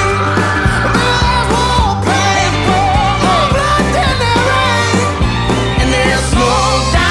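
Rock-country song with drums, a steady bass line and a wavering lead voice or guitar line.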